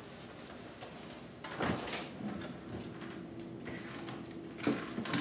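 Refrigerator-freezer being opened and shut: a knock about a second and a half in, a faint steady hum after it, and two more thuds near the end.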